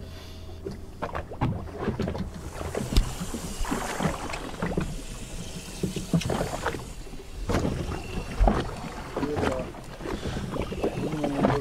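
Wind on the microphone aboard a small fishing boat, with scattered knocks and clatter over a low steady hum.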